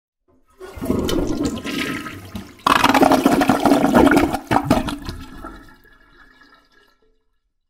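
A toilet flushing. The water starts about half a second in, surges to a loud rush at about three seconds, then drains away and fades out.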